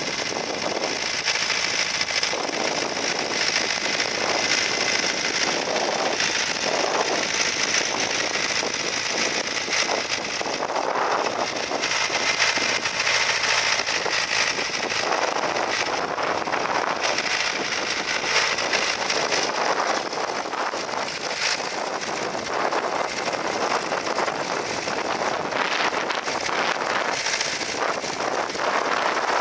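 International B-275 tractor's four-cylinder diesel engine running steadily under load as it pulls a plough through the soil, with a fast crackling clatter.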